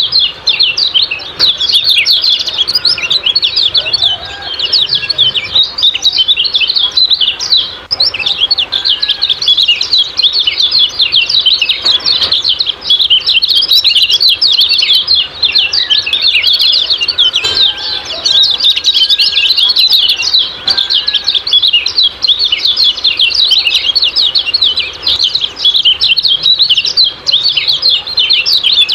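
Common iora (kecial kuning) giving its 'ciak-ciak' call: a dense, unbroken stream of quick, high chirps with hardly a pause.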